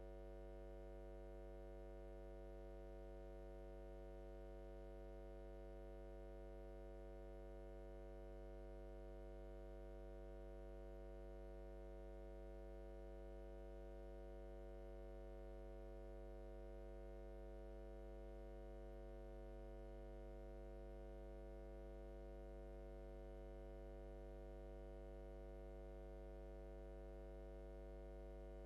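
Steady electrical mains hum on an otherwise silent audio line, a low buzz with many overtones that never changes.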